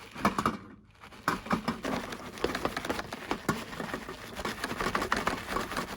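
Small die-cast toy cars clicking and rattling against plastic: a quick, irregular run of small clicks.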